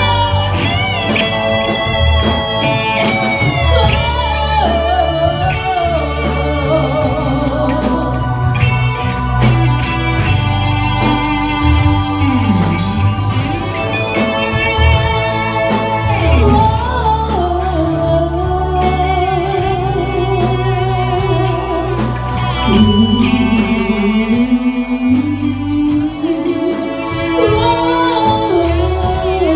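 Live rock band playing an instrumental passage of the song: a lead melody with pitch bends and vibrato over a steady bass line and drums.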